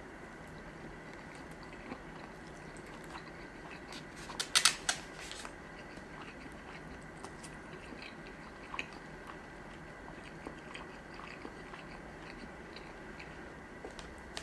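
Close-miked mouth sounds of a person chewing sushi, with soft wet clicks throughout. A quick cluster of loud, sharp clicks comes about four and a half seconds in, and a single click follows a few seconds later.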